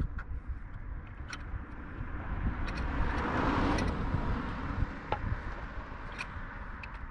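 A car passes by, its tyre and engine noise building over a couple of seconds, peaking mid-way and fading. Over it come a few light clicks from small wire connectors being handled.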